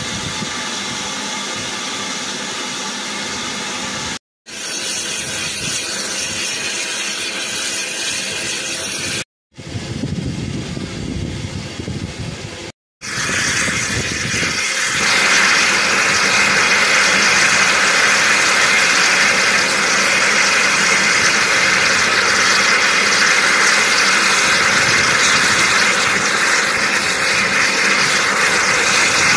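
Steam locomotive standing with steam hissing steadily, broken by three brief cuts; from about halfway through a louder, even hiss of escaping steam takes over and stays to the end.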